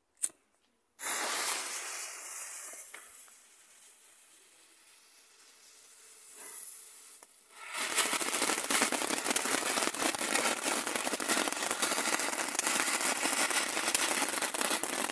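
A small youth-category firework fountain. About a second in a hiss starts sharply and fades away over several seconds. From about eight seconds in the fountain sprays sparks with a loud, dense crackling hiss, which stops at the end.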